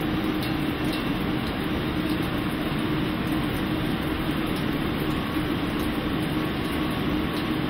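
Thin stream of ultrapure water pouring steadily from a Millipore Milli-Q Q-POD dispenser into a wet-bench sink during a metered quarter-litre dispense, over a steady rushing noise with a faint hum.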